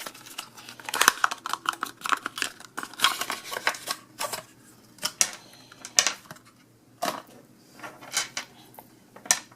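Cable packaging being opened by hand and the cables taken out: a quick run of clicks and rustling in the first few seconds, then a few single clicks and taps.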